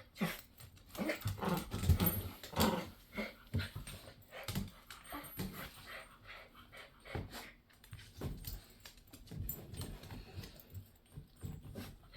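A giant schnauzer and a miniature schnauzer tussling over a plush squeaky toy, with dog sounds and scuffling in short irregular bursts.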